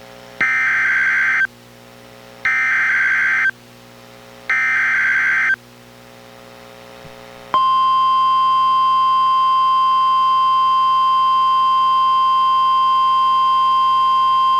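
NOAA Weather Radio Emergency Alert System alert played by a Reecom R-1630 weather radio: three bursts of the SAME digital header, each a buzzy warbling data tone about a second long with a second's gap between them. About two seconds after the last burst, the steady 1050 Hz warning alarm tone starts and holds, signalling that a warning-level alert is about to be read.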